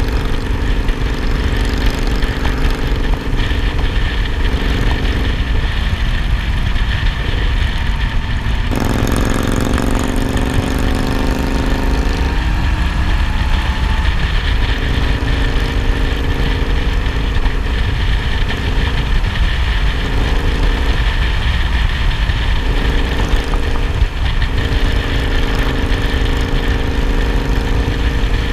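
Motorcycle engine running on the road under heavy wind rumble on the handlebar-mounted camera. About nine seconds in, the engine note rises for a few seconds as the bike speeds up, then settles back to a steady cruise.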